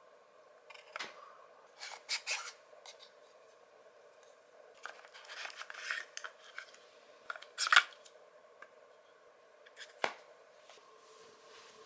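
Scattered short rustles and scrapes of something being handled, with the sharpest one about three-quarters of the way through.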